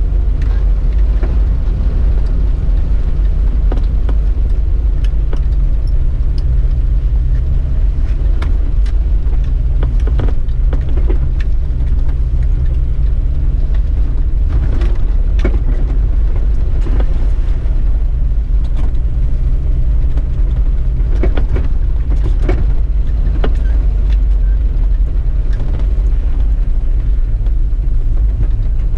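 Low, steady engine and drivetrain rumble of a 4x4 crawling along a rough dirt trail, heard from inside the cab, with scattered knocks and rattles from the bumps.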